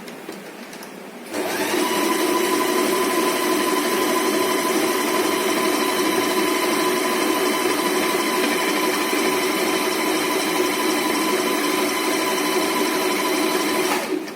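Usha Janome Stitch Magic sewing machine running steadily while sewing a zigzag triple stitch. It starts about a second in and stops just before the end.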